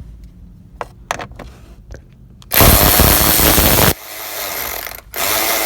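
Power driver with a 7 mm socket spinning out an instrument-cluster screw in short runs: a few small clicks, then a loud run of about a second and a half, a quieter stretch, and another run near the end.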